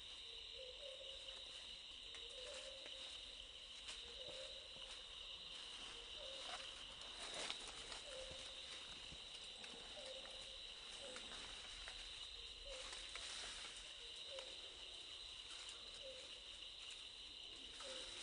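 Faint forest insects (crickets or cicadas) trilling steadily at a high pitch, with a short low call repeating about every second and a half from an unseen animal, and a few faint clicks.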